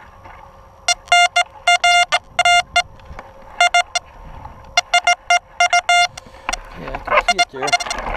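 XP Deus metal detector sounding a run of short, choppy beeps in quick clusters as the coil sweeps over targets, the short, ratty kind of signal given by iron. A rustling scrape comes in near the end.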